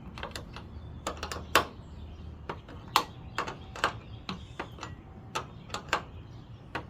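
Irregular metal clicks and clinks as a wrench turns the 13 mm nut on a hand rivet-nut setting tool, drawing a nutsert tight in the sheet metal.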